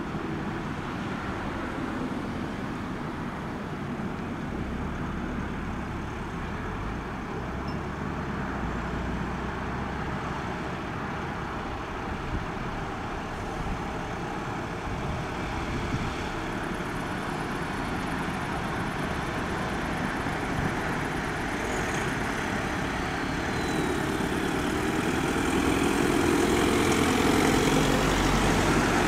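Traffic noise of a column of emergency vans and trucks driving past: engines and tyres on the road, steady, then growing louder over the last few seconds as more vans come close.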